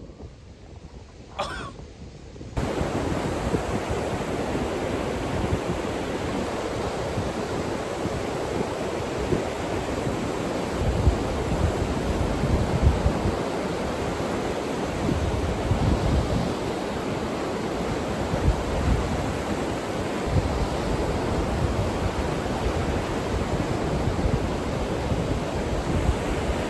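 Ocean surf washing steadily with wind buffeting the microphone, starting suddenly about two and a half seconds in; the low rumble of the wind gusts comes and goes through the rest.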